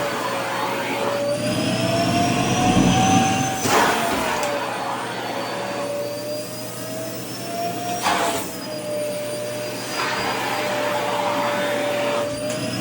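Vacuum cleaner running with a steady motor whine that slowly drifts up in pitch and then drops. A short rush of air comes three times, about four seconds apart, as the skirt fabric is drawn into the nozzle.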